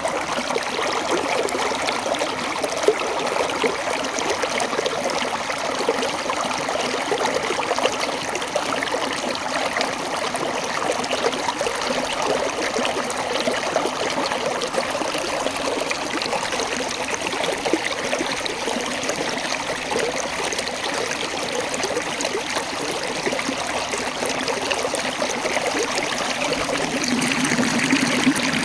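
A small waterfall: water running and burbling over rocks in a steady rush, a little louder near the end.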